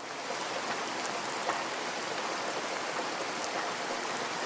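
Steady rain falling, an even hiss of many drops, with a single sharper tick about a second and a half in.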